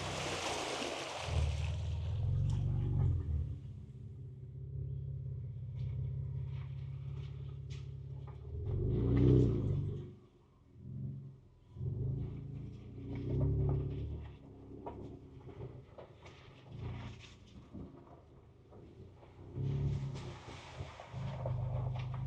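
Ford Ranger Raptor's twin-turbo V6 heard from inside the cab at low trail speed, its low hum swelling several times as the throttle is pressed and eased. Scattered light knocks and clicks run through it while crawling over rough ground.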